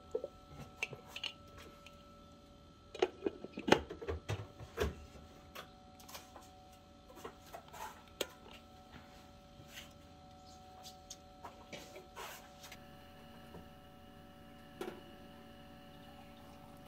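Handling clatter of an electric egg steamer being loaded: a metal bowl and a plastic dome lid set in place, with a run of sharp knocks about three to five seconds in. Then scattered faint ticks over a steady low hum while the steamer runs.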